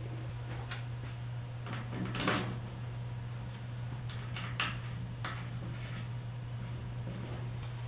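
Scattered light clicks and knocks from an acrylic panel being handled and fitted against a washout booth's sheet-metal frame, with a louder knock about two seconds in and a sharp click past the middle. A steady low hum runs underneath.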